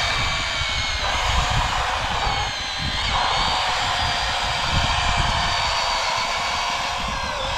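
Electric motors of radio-controlled construction models whining together at several steady pitches, with small dips and glides as they load up, over a low rumble.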